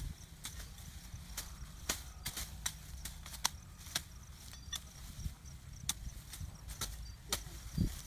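Machete chopping into a shrub's stems and branches: an irregular run of sharp cuts, about two a second, with a low thump near the end.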